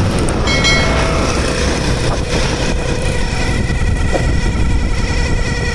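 Motorcycle ridden at speed with a steady, rapidly pulsing squeal from the front wheel over the engine and road noise, stronger in the second half. The squeal comes from the speedometer cable drive, a sign of a jammed, carbon-fouled or rusted speedometer cable.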